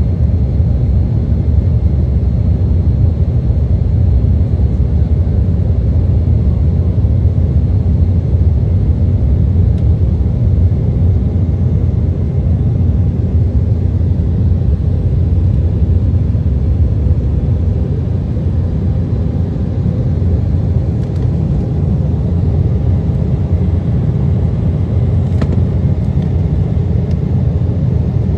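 Steady low rumble of a jet airliner's cabin in flight, the engines and rushing airflow heard from a window seat.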